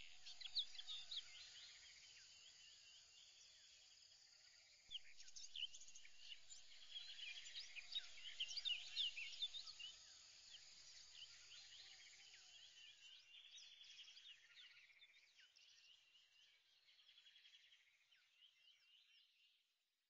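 Faint chorus of many birds chirping, with short overlapping calls. It gets louder about five seconds in and fades out near the end.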